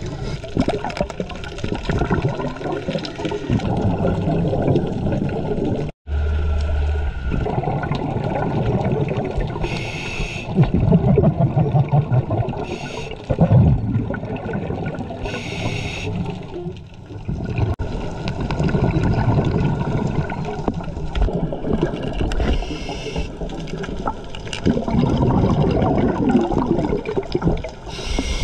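Muffled underwater rumble of water against a camera housing, broken every few seconds by short hissing rushes of exhaled scuba regulator bubbles.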